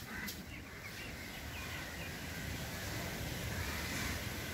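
Outdoor ambience: a steady low rumble with a few faint bird chirps.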